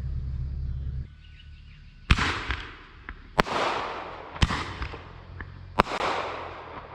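Fireworks going off: four sharp bangs spaced about a second apart, each trailing off over roughly a second. A low steady hum cuts off about a second in.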